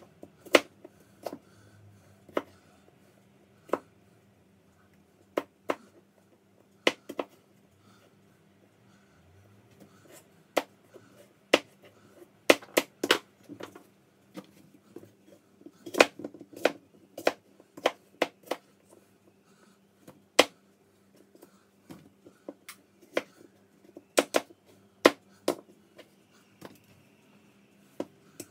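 Knife cutting apples into pieces on a cutting board: irregular sharp knocks of the blade striking the board, in small clusters with pauses between them.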